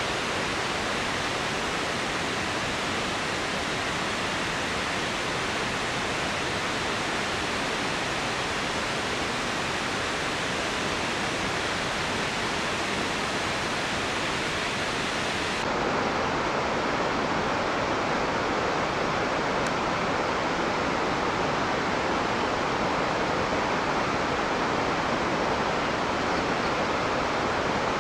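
Steady rushing of an 80-metre waterfall, an even roar with no breaks. About halfway through its tone shifts abruptly, losing some of its hiss and growing fuller in the middle range.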